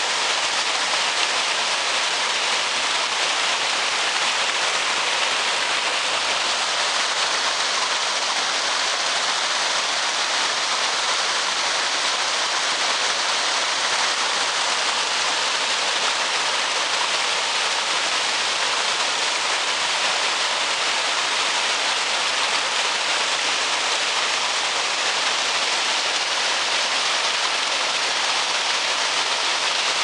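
Mountain stream rushing over rocks and a low weir, whitewater making a steady hissing rush with no let-up.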